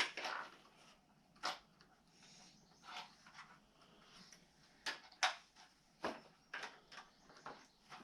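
Irregular sharp clicks and knocks, about nine of them, the loudest about five seconds in, like small hard objects being handled and set down.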